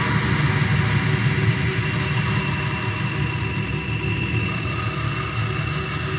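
Electronic noise music: a steady, dense drone with a held high tone over a low rumble.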